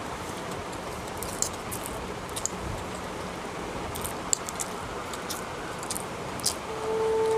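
Metal fork clicking and scraping against a plate while noodles are twirled and eaten, a dozen or so short sharp clicks scattered over a steady background hiss. Near the end a steady tone comes in and grows louder.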